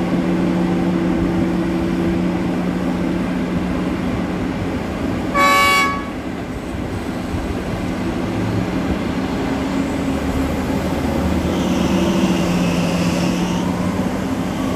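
Heavy mining machinery's diesel engines running steadily, with one short horn blast about five seconds in.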